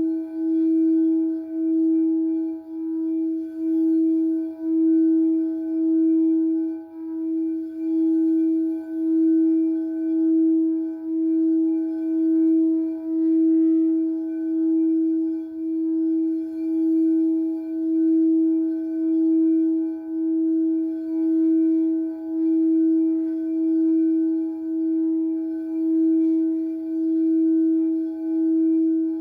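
Singing bowl sounding one sustained, steady tone with fainter overtones above it, wobbling in loudness about once a second.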